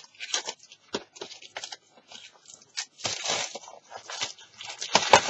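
Packaging rustling and crinkling, with scattered light clicks, as a metal watercolour palette box is handled and opened. There is a longer crinkling stretch midway and a sharper knock near the end.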